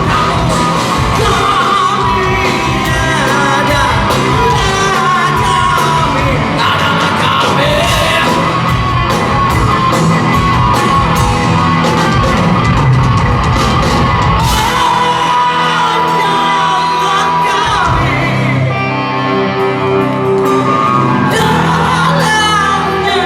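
Live rock band playing loud in a large hall, with drums and sung and shouted vocals. The deep bass drops out for a few seconds about two-thirds through, then comes back.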